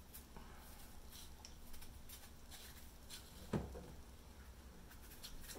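Faint scraping of small knives peeling ripe persimmons, with light clicks, and one louder knock about three and a half seconds in.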